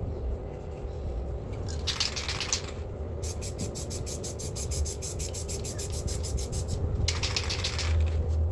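Aerosol spray paint can: a short hiss of spraying about two seconds in, then the can shaken hard so its mixing ball rattles in quick, even clicks, then another hiss of spraying near the end. A steady low rumble runs underneath.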